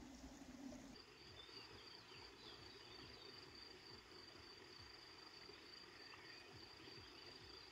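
Faint steady high-pitched trill of a cricket in rural evening quiet, starting about a second in.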